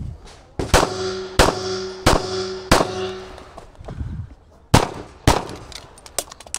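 Pistol shots fired in a practical shooting stage: four shots about two-thirds of a second apart with a metallic ringing tone, typical of hit steel target plates, hanging over them, then a pause and two more shots, followed by a flurry of lighter clicks near the end.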